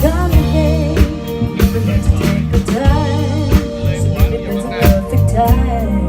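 Soul music: a lead singer over a band, with regular drum hits and a bass line.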